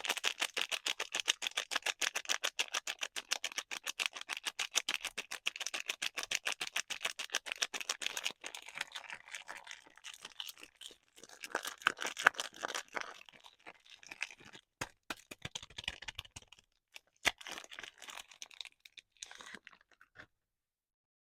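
Soap packaging being unwrapped by hand. First comes a rapid run of crackling clicks for about eight seconds, then looser crinkling and rustling with short pauses, which stops near the end.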